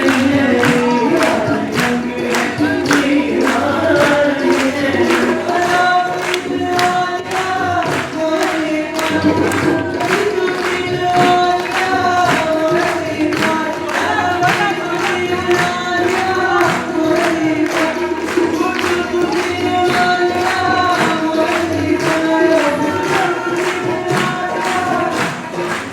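Sufi song sung by a group of voices over a steady hand-percussion beat.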